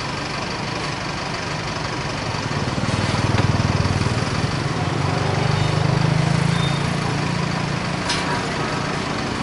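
A motor vehicle's engine running at low revs over outdoor street noise, swelling louder about three seconds in and again around six seconds. A short click comes near the end.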